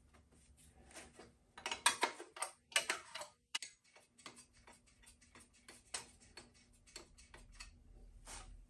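Hand ratchet wrench clicking steadily, about three or four clicks a second, while working a nut on a minibike's swing arm. A few louder metal clanks of tools come in the first few seconds.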